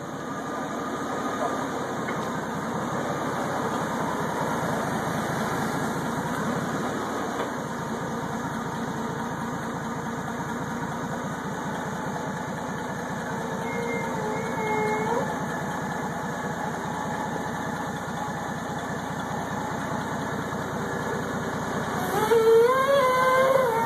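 Clark forklift engine running steadily while the forklift lifts and backs out carrying a roughly 3000-pound power hammer on its forks. A louder wavering tone rises over the engine near the end.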